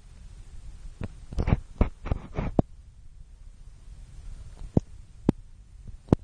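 Gamo CFX air rifle: a quick run of sharp clicks and knocks about a second in, then three single sharp clicks spread over the rest, over a steady low rumble.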